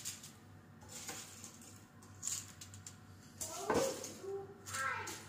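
Metal tongs dropping crisp fried bread pieces into a glass bowl: light crunchy rattles and clicks, with the loudest clatter a little before four seconds in.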